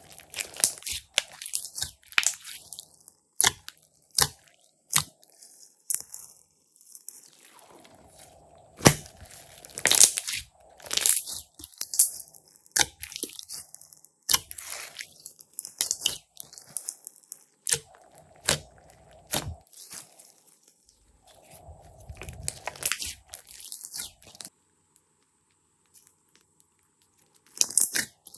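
Glossy slime being squeezed and kneaded by hand, giving bursts of sticky clicks and crackling pops, with a pause of about three seconds near the end.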